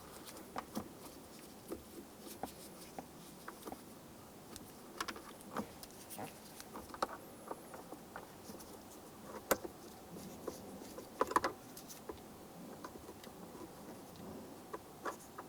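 Phillips screwdriver backing out screws from a plastic console lid latch: faint, scattered small clicks and scrapes, with the sharpest clicks about nine and a half and eleven seconds in.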